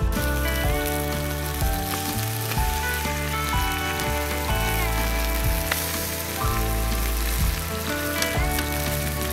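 Chili sauce with squid and blue crabs sizzling in a large wok over a fire, under background music with a changing bass line and a melody that slides in pitch now and then.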